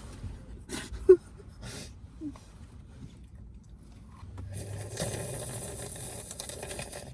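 Eating sounds from a frozen-yogurt mukbang: a few short mouth and spoon noises, one sharp one about a second in, then from about halfway a steady slurp of nearly three seconds as melted, soupy frozen yogurt is sucked up.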